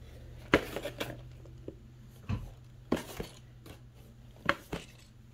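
About seven light, scattered knocks and taps, handling noise from a phone held in the hand, over a faint steady low hum.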